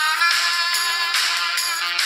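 Music playing: sustained notes over a steady, evenly spaced beat.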